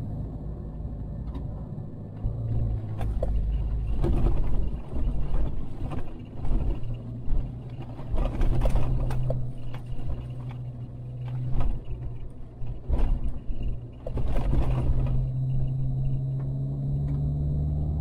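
Car engine running as the car drives on a rough dirt road, its low hum stepping up and down in pitch under a rumble of tyres, with repeated knocks and rattles as it jolts over the ruts.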